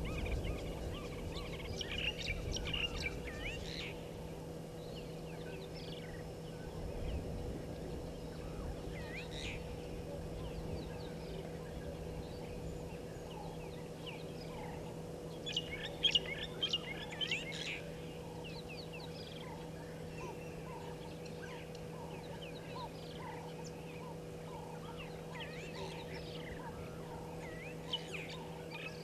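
Birds calling: several bursts of high chirps and whistles, and from about halfway a slow series of lower repeated notes, a little over one a second. A steady low hum runs underneath.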